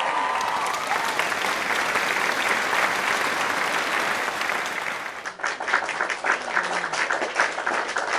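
Audience applauding: dense, massed clapping that thins out about five seconds in to fewer, distinct claps.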